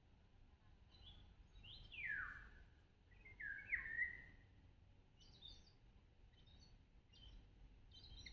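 Birds calling: two loud whistled calls that slide steeply downward in pitch in the first half, then a run of short, high chirps about once a second.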